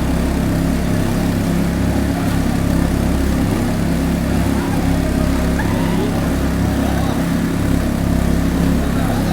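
An engine running steadily at one constant speed, a low even drone that does not rise or fall.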